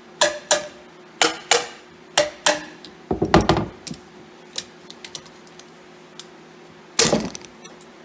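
Sharp metal-on-metal strikes with a brief ring, in pairs about once a second, while valves are worked out of a tractor cylinder head. About three seconds in comes a short rattle of loose metal parts, then a few light clicks and one louder clank near the end.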